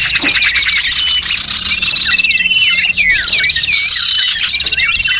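Several small birds calling at once in a dense chorus of quick chirps, swooping whistled notes and fast trills, over two steady high-pitched tones and a low hum: a lure-call recording for attracting small birds.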